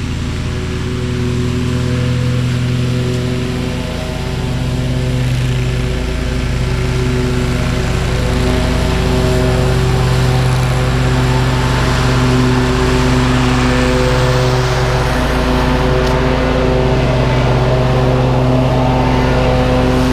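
Toro GrandStand stand-on mower's engine running with the blades engaged, cutting tall overgrown grass; its steady drone wavers slightly in pitch and grows louder as the mower comes closer, from about eight seconds in.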